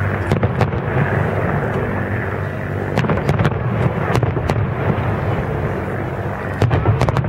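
Large aerial fireworks display: a continuous low rumble of shell bursts with sharp cracks and pops scattered through it, in a cluster about three to four and a half seconds in and again near the end.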